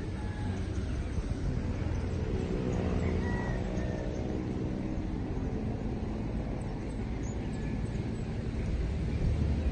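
Steady drone of an engine passing at a distance, strongest a few seconds in, over a low outdoor rumble.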